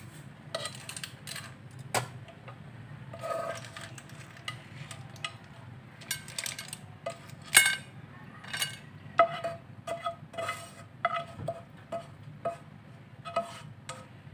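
A utensil scraping and knocking against a nonstick frying pan and a plate as spaghetti with clams is tipped out: a run of irregular clinks and knocks, some ringing briefly, with clam shells clicking. A low steady hum sits underneath.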